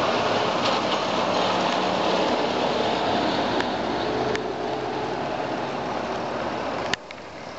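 A tractor engine running as it drives past close by, followed by a car going by, with steady, dense engine and road noise. Near the end a sharp click cuts the sound off abruptly to a quieter background.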